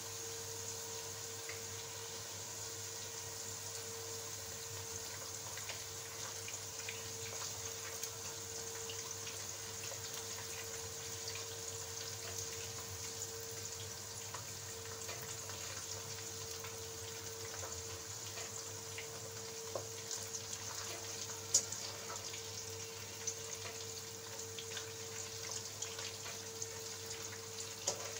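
Papri dough squares deep-frying in hot oil: a steady sizzle, with a few light clicks, the loudest about three quarters of the way through.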